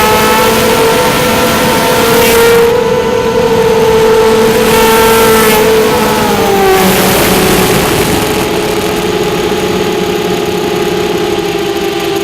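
Quadcopter drone's propellers and motors whining steadily. The pitch drops slightly about six to seven seconds in, and washes of hiss swell and fade over it a few times.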